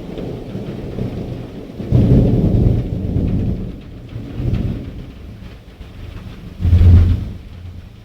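Thunder rolling through steady rain: a loud rumble builds about two seconds in and slowly dies away, then swells again sharply near the end.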